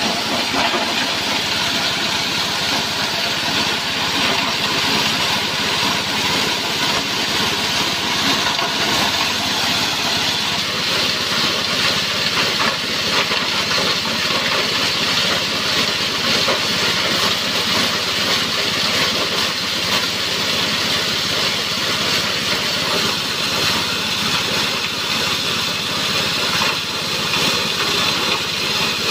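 Small single-cylinder petrol engine running steadily, driving a multifunction grass chopper machine as dried corn cobs are fed into its hopper and crushed.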